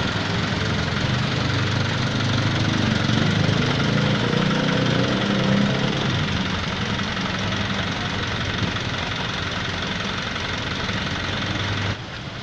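Tow truck's engine idling steadily; the sound cuts off near the end.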